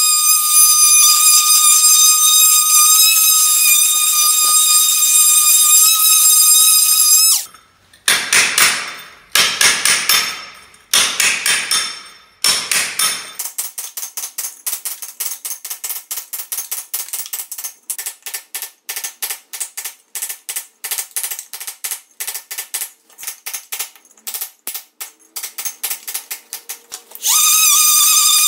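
Cordless oscillating multi-tool grinding off old tile adhesive with a steady high whine, which stops about seven seconds in. A few long scraping strokes follow, then rapid short scraping and chipping as a hand scraper works the cured adhesive on the concrete floor. The multi-tool starts whining again near the end.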